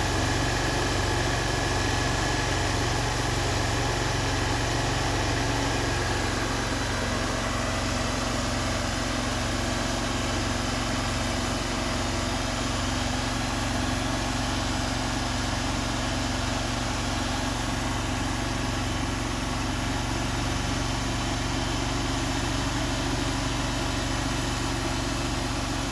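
Wood-Mizer LT40 band sawmill running steadily under load, its band blade sawing a board off the log as the sawhead feeds forward along the cut.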